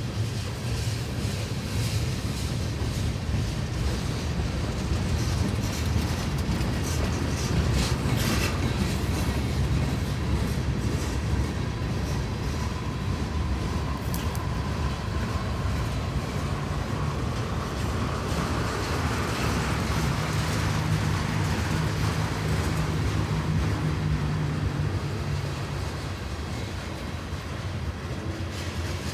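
CSX freight train rolling past: a steady heavy rumble of wheels on rail, with a few sharp clacks.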